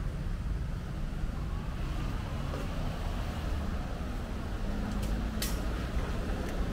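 Street traffic ambience: cars passing on a nearby road over a steady low rumble, with a brief sharp high-pitched sound about five seconds in.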